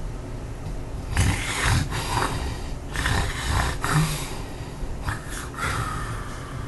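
A man snoring loudly in irregular bursts: two long snores starting about one and three seconds in, then shorter ones near the end. The uploader puts the snoring down to sleep apnea.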